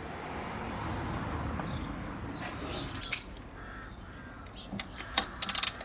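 Ratchet wrench with socket working a bolt on a power steering reservoir. There are a few separate clicks, then a quick run of ratchet clicks near the end.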